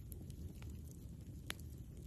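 Campfire burning: sparse small crackles of burning wood over a soft low background noise, with one sharper pop about one and a half seconds in.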